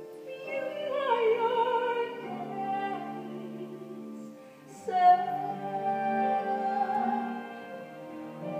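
A woman singing a slow musical-theatre ballad over instrumental accompaniment, in long held notes. A new phrase comes in loudly about five seconds in.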